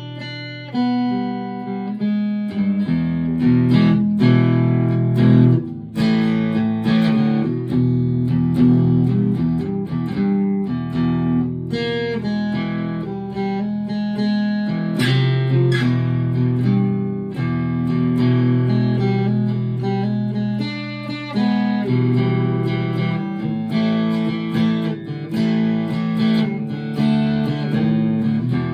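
Fender California Malibu acoustic-electric guitar played plugged in, a run of strummed chords and picked single notes. Its onboard bass and treble are set near the middle, with the bass up slightly.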